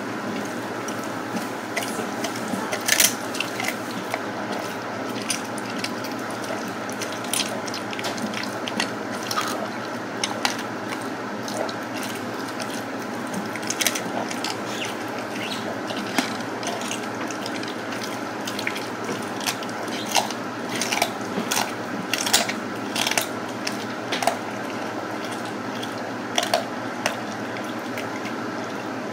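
Siberian husky chewing a raw chicken back from a stainless steel bowl: irregular sharp crunches and clicks as the bones crack and its teeth and the meat knock against the bowl.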